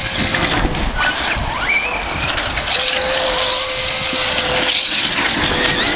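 2400kv brushless motor of a Losi SC10 4x4 radio-control short-course truck on 4S LiPo, whining up and down in pitch with the throttle, over the hiss of its tyres spinning through snow.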